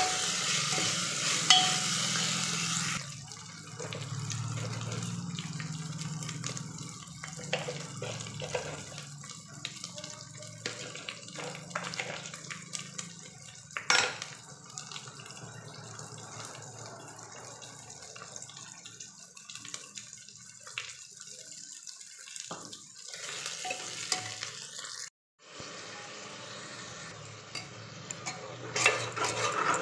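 Onion-tomato masala sizzling in hot oil in an aluminium pressure cooker while a steel spoon stirs and scrapes against the pot. The sizzle is loud for the first few seconds, then quieter, with scattered scrapes and clinks and one sharp knock about halfway through.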